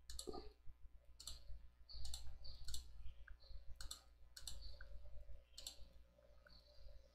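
Computer mouse clicking: about seven separate sharp clicks, some close together, over a faint low hum.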